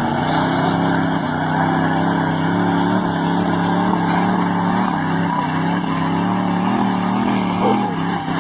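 Lifted pickup truck on oversized tires, its engine running hard under throttle at a fairly steady pitch with small wavers. Near the end there is a brief louder burst as the truck tips over.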